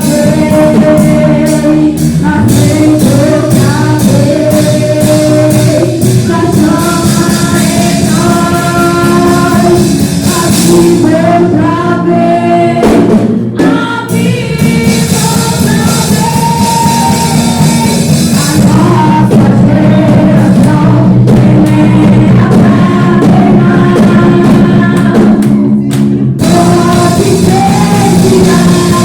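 Gospel worship band playing with drums under long, held sung notes from the voices, with short breaks in the band about halfway through and again near the end.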